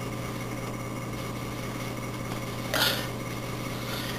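A steady low electrical hum, with a single short clatter about three seconds in.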